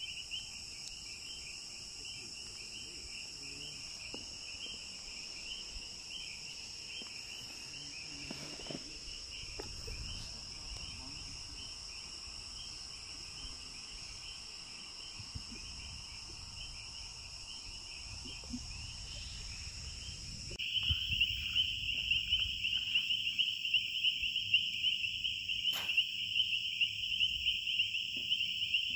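Crickets trilling in a steady night chorus, a fast pulsing trill with higher steady insect tones above it. The chorus gets noticeably louder about two-thirds of the way in.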